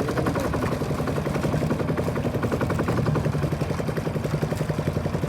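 Small boat's engine running steadily, a fast even chugging of firing strokes.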